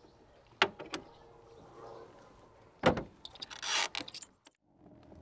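Two light clicks, then the light aluminium hood of a 1951 Allard K-2 shutting with a loud thump about three seconds in, followed by a brief rattle.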